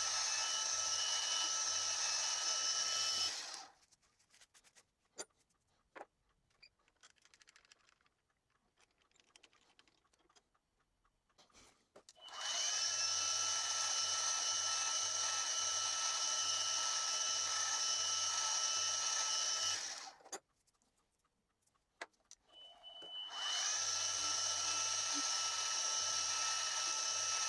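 Milling machine spindle running with a steady high whine while drilling deep holes in aluminium bar. It stops about three seconds in, leaving only a few light clicks, starts again about twelve seconds in, stops near twenty seconds, and starts once more a few seconds later.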